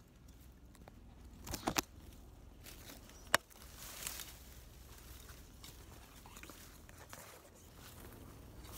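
Dry sticks and brush rustling and snapping underfoot, with a quick cluster of sharp cracks about one and a half seconds in and a single sharp snap a couple of seconds later.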